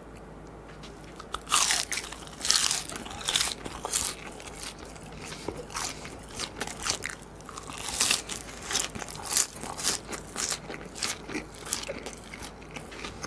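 Close-miked biting and chewing of crispy guobaorou, Chinese fried pork in a crisp rice batter. Loud irregular crunches start about a second and a half in and go on crunch after crunch.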